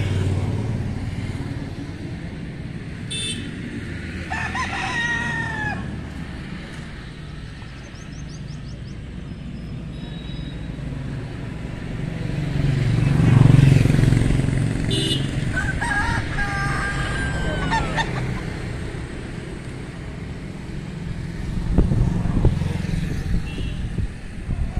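White Leghorn rooster crowing twice, a shorter crow about four seconds in and a longer one about two-thirds of the way through, each rising, held and falling away. A low rumble swells under it about midway.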